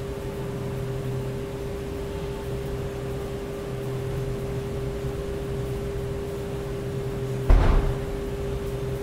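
Steady mechanical hum with a constant tone in a large hall. One loud, short thud about seven and a half seconds in.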